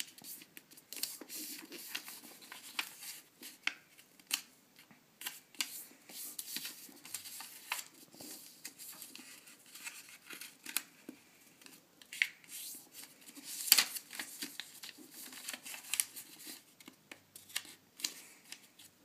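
A square sheet of paper being folded by hand, its corners brought into the middle for a paper fortune teller: an irregular run of crisp crackles and rustles as the creases are pressed flat, with one sharper crackle about two-thirds through.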